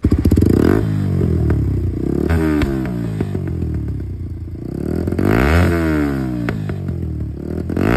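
TVS Apache RTR 160 4V's single-cylinder engine revved through an aftermarket carbon-finish muffler. The pitch climbs and drops in several blips, with scattered sharp crackles from the exhaust.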